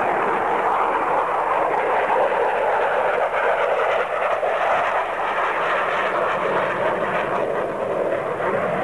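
Steady jet engine noise from a Su-47 Berkut flying a display manoeuvre overhead: an even rushing noise that neither swells nor fades noticeably.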